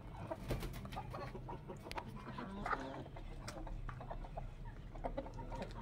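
A flock of Aseel chickens clucking quietly, with one short call about halfway through. Their beaks tap the concrete floor as they peck at scattered food scraps.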